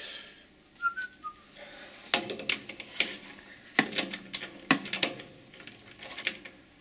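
Metal clicks and knocks of a socket wrench tightening the bolt on a compressor's air filter casing, irregular and a fraction of a second apart, with a brief high squeak about a second in.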